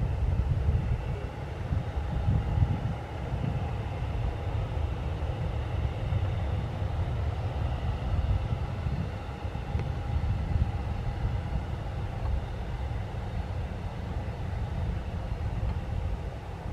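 Ryanair Boeing 737's jet engines at takeoff thrust: a steady low rumble with a faint, steady whine above it.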